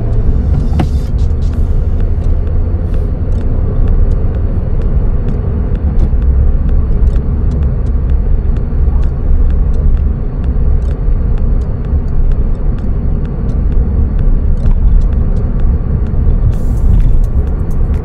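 Cabin noise of a Suzuki Swift Sport (ZC32S) on the move: a steady low rumble of road and four-cylinder engine noise, with scattered faint clicks.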